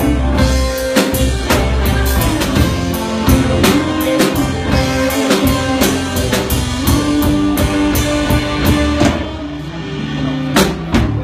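Blues-rock band playing an instrumental passage live, a drum kit keeping a steady beat under bass and guitar.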